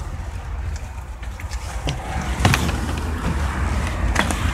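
Low rumble and rustle of wind and handling noise on a handheld phone microphone being carried out of a car, with a few knocks and clicks, the sharpest about halfway through.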